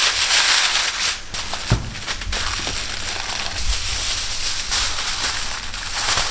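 Aluminium foil crinkling and rustling as it is pulled off a roll and pressed around a glass baking dish, with a light knock about two seconds in.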